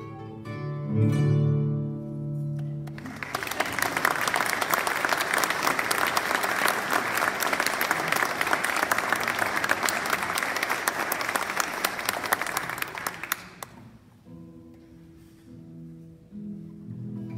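A classical guitar plays the final notes of a piece, ending on a low chord, then an audience applauds for about ten seconds. As the clapping dies away, the guitar starts playing softly again.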